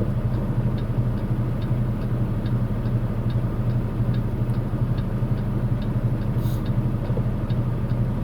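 Semi truck's engine running steadily as heard from inside the cab while driving, a low even drone. Faint light ticks come about twice a second.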